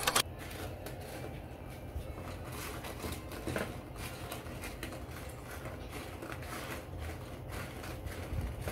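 Dried red chiles being turned by hand on a griddle as they toast: light scattered clicks and scrapes of the brittle pods against the pan, over a low steady hum.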